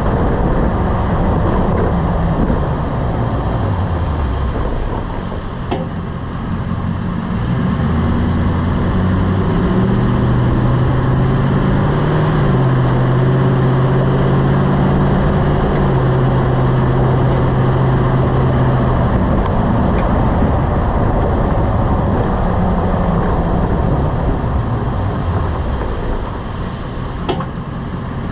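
Lifted pickup truck on the move, its engine note climbing and then falling with speed over steady road noise. A brief knock about six seconds in and another near the end come as it slows: the clunk under braking that a new CV axle and new ball joints have not cured.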